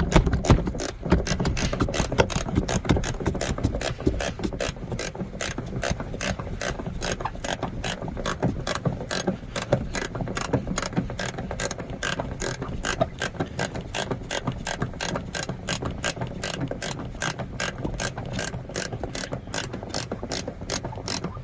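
Hand socket ratchet wrench turning a seat-belt anchor bolt, its pawl clicking steadily at about three to four clicks a second.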